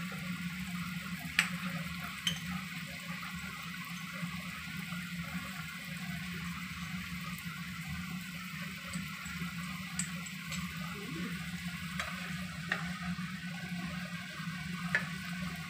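Cucumber chunks frying in a nonstick pan with garlic and dried shrimp: a steady sizzle with scattered small pops and crackles, over a steady low hum.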